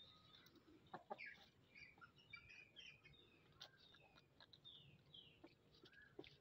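Faint clucking and short calls from a pair of Aseel chickens, with many brief high chirps that fall in pitch and a few sharp clicks.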